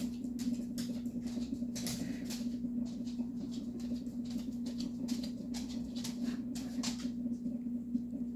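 A paintbrush scratching in quick strokes, working thinned paint over a vinyl doll head and in the paint pot, over a steady low hum; the scratching stops a second or so before the end.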